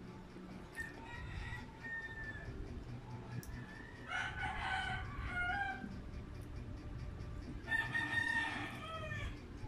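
A rooster crowing, twice clearly, each crow about one and a half to two seconds long and falling in pitch at the end, with a fainter call about a second in.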